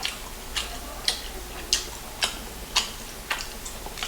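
Close-miked chewing and mouth smacks while eating fried chicken with sauce: sharp wet clicks about twice a second, a little uneven in their spacing.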